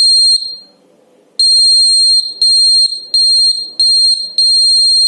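Buzzer of a homemade magnetic door alarm sounding a steady high-pitched tone in on-off bursts. There is a short burst at the start, a pause of about a second, then five bursts of uneven length, each beginning with a click. The alarm is sounding because its magnet has been moved away from the sensor, as when a door is opened.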